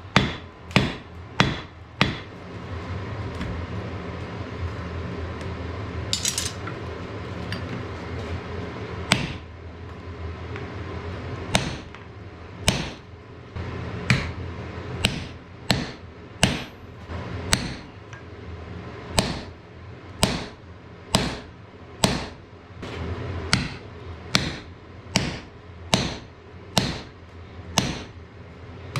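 Hammer blows ringing on hot wrought iron over an anvil while forging an axe. A few quick strikes, a pause of several seconds with a steady low rumble and a brief hiss, then strikes resume at about one a second.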